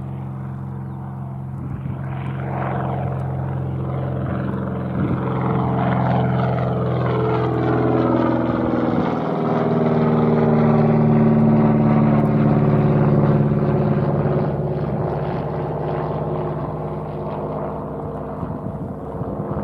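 Airbus A400M's four TP400 turboprop engines and eight-bladed propellers running on landing approach: a layered propeller hum that grows louder to a peak about halfway through. The pitch of its tones slides steadily down as the aircraft passes overhead, and the sound then eases off.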